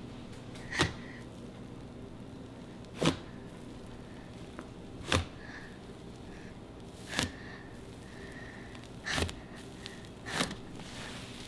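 Hands pressing and squeezing a huge mass of fluffy slime made from glue, shaving cream and activator, with six sharp pops about two seconds apart.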